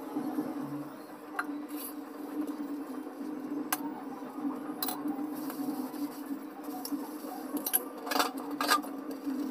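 Stainless-steel dishes being scrubbed by hand, with scattered clinks and knocks of metal on metal, a cluster of them near the end, over a steady low hum.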